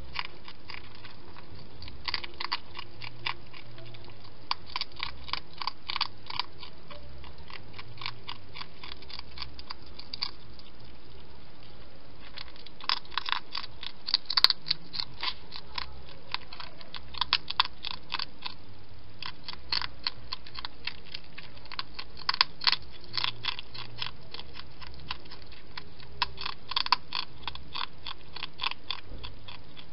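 Hedgehog eating from a bowl: rapid crunchy chewing clicks in runs of a second or two, with short pauses between.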